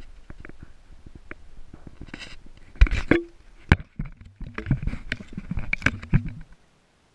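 Handling noise from a camera being moved and set down on a floor: scattered knocks and rustling, with a loud thump about three seconds in and another burst of rustling and knocks after it. The sound cuts off suddenly near the end.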